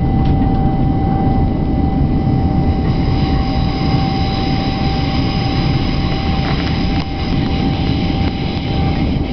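Passenger train running, heard from inside the carriage: a steady low rumble with a constant thin whine over it.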